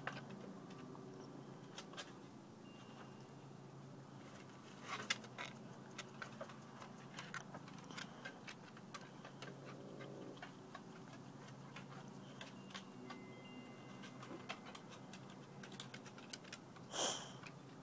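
Quiet background with a faint steady low hum and scattered light ticks and clicks, and one brief louder rustle near the end.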